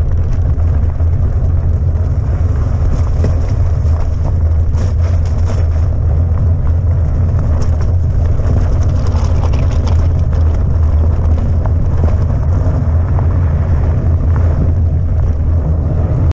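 Steady low rumble of a fat bike rolling over a gravel track, picked up by a handlebar-mounted action camera, with wind buffeting the microphone. Scattered clicks and rattles from stones and the bike come through, busiest a few seconds in and again past the middle.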